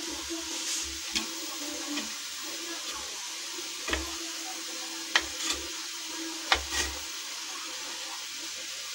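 A kitchen knife slicing a block of paneer into cubes, its blade clicking sharply against a ceramic plate several times at uneven intervals. A steady hiss runs underneath.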